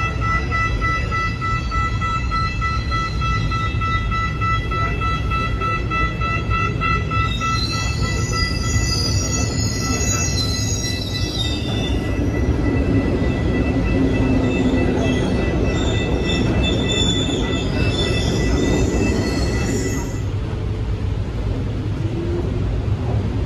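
Cairo Metro train running on the rails with a steady rumble and a set of high, steady whining tones that stop about twenty seconds in. Wavering high squeals come in twice, about a third of the way in and again later.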